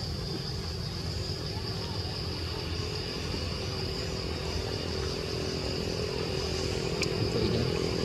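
Steady outdoor background noise: a low rumble with a constant high hum over it, and one faint click about seven seconds in.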